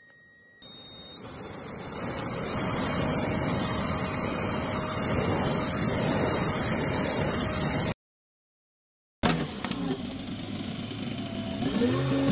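Handheld hair dryer blowing into the draught hole of a charcoal bucket stove, its motor whine stepping up twice in pitch as it is switched up, over a steady rush of air through the fire. After a sudden cut about 9 seconds in, a backhoe's diesel engine is running.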